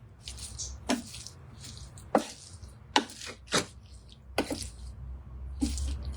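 Spatula knocking and scraping in a pan of fried rice as it is stirred, with about six sharp knocks spread across a few seconds.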